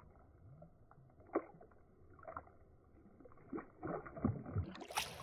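Faint, muffled water sounds from a kayak on the river, with a few soft knocks and splashes, most of them in the second half.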